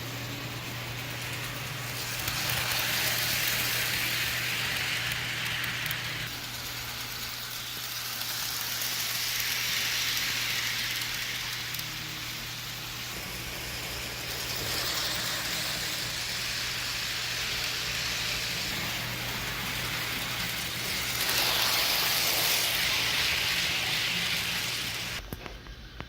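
HO scale model train running on its track. A steady low hum sits under a hiss of wheels and motor that swells and fades about four times as the train comes near and moves away, then drops off suddenly just before the end.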